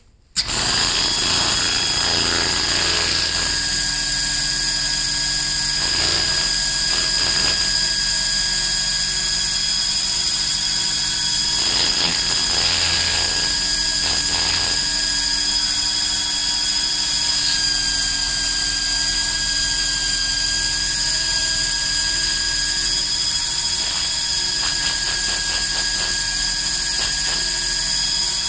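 Cue repair lathe switching on about half a second in and then running steadily with a whine, spinning a carbon fiber pool cue shaft as a paper towel is held against it.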